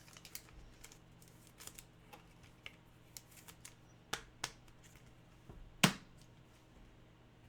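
Faint rustling and light clicks of trading cards being handled and sorted by hand, with a few sharper taps and one louder snap about six seconds in.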